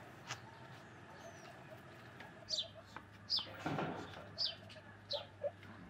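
Birds chirping: a series of short, high, falling chirps, roughly one a second, beginning about halfway through, with a brief soft rustle in the middle.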